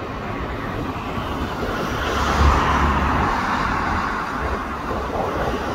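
Road traffic noise, with a car passing close by: a steady wash of tyre and engine noise that swells about two seconds in and fades again.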